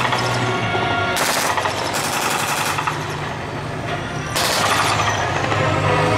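Several bursts of rapid automatic gunfire, machine-gun blank fire in a staged battle demonstration, over the steady low drone of vehicle engines.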